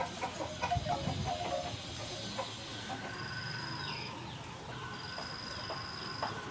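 Chickens clucking, several short clucks in the first two seconds, over outdoor background noise. After that a high, steady tone lasts about a second and repeats about every two seconds.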